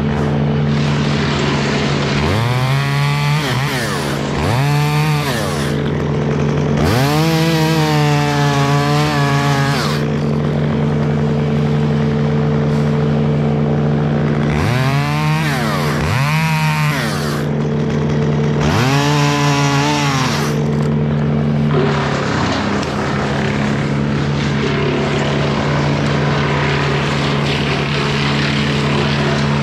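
Two-stroke chainsaw revved up in about six surges while cutting limbs, the longest about three seconds, each rising quickly in pitch and dropping back. A steady engine hum runs underneath.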